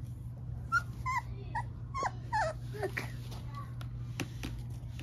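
Young puppies whimpering and yipping: a quick run of short, wavering high whines between about one and three seconds in, then two sharp clicks near the end.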